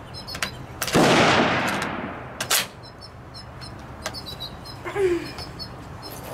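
A single shot from a Karabiner 98k bolt-action rifle in 7.92×57mm Mauser about a second in, with a long echoing tail, followed about a second and a half later by a second, shorter sharp crack. Birds chirp faintly throughout.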